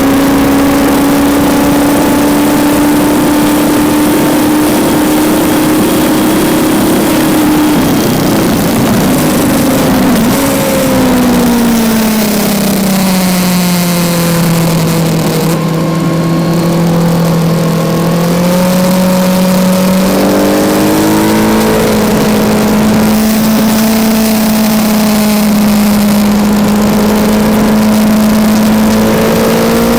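Kawasaki Z900's inline-four engine heard onboard at track speed, with wind rush over the microphone throughout. The engine note climbs slowly under throttle, then drops in steps about eight to eleven seconds in as the bike slows. It stays low for a few seconds, then pulls up again, with a brief break near twenty seconds as it shifts and keeps rising.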